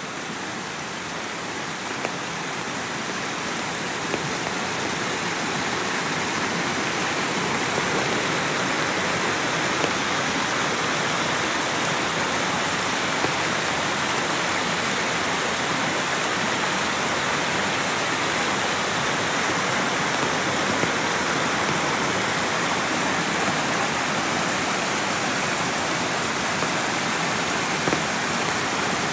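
Waterfall: a steady, loud rush of falling water that swells over the first several seconds and then holds level.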